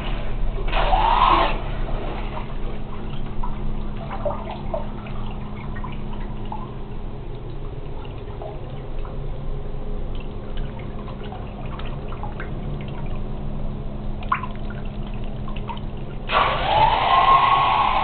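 Cordless hair dryer's fan motor whirs briefly about a second in, then water sloshes and bubbles with scattered drips and a steady low hum. Near the end the dryer starts again, its whine rising as the fan spins up and then holding steady.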